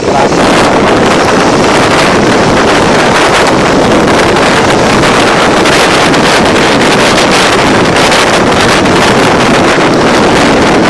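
Loud, steady wind rush buffeting the microphone of a rider on a moving motorcycle.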